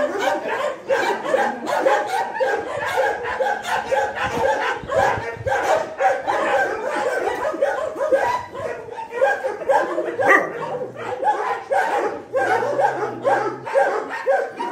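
A pack of dogs playing rough, giving a steady run of short overlapping barks and yips.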